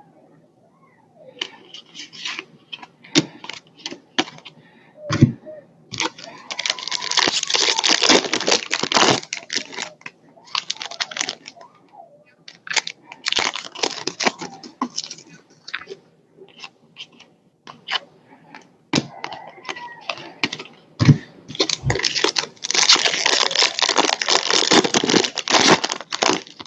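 Trading card packs being torn open: wrappers crinkling and ripping in two long stretches, with a run of small snaps and clicks from cards being handled and flicked through in between.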